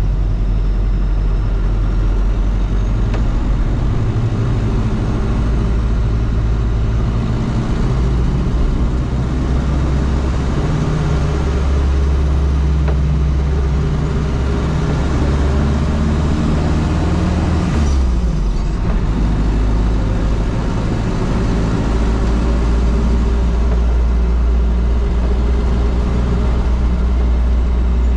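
The 1987 Toyota Land Cruiser BJ73's turbocharged 13B-T four-cylinder diesel engine runs steadily while driving. About two-thirds of the way through the engine note briefly drops away, then comes back at a different pitch.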